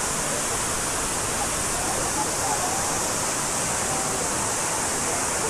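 Villa d'Este's Fountain of Neptune: tall water jets and stepped cascades pouring into a large pool, a steady rushing hiss of falling water.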